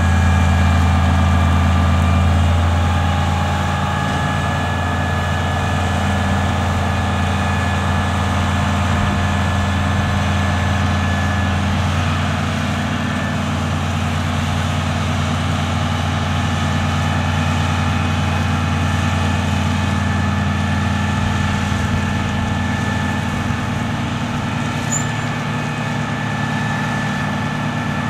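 Ladder truck's diesel engine running steadily at a raised idle while the aerial platform is lowered, a little louder for the first few seconds, with a faint steady whine above the drone.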